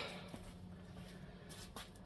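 A quiet workshop with a low steady hum and a few faint clicks, two of them about one and a half seconds in, likely from tools being handled.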